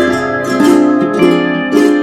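Background music: plucked strings playing a melody over a steady beat.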